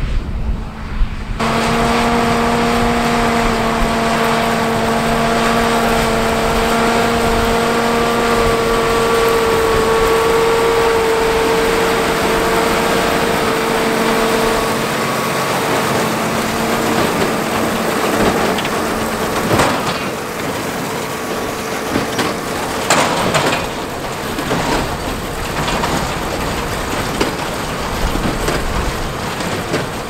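Tractor pulling a large square baler through wheat straw, the engine and baler running steadily with a pitched whine that fades after about the middle. A few sharp knocks come near the end.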